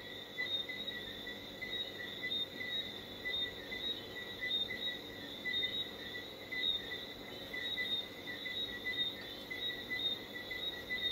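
Insects chirping in a steady, high, pulsing trill.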